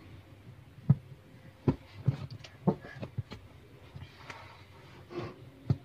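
Sharp knocks and clicks, irregularly spaced, about eight in all, from washing machine parts being handled and fitted while a new rotor is installed in a plastic washing machine.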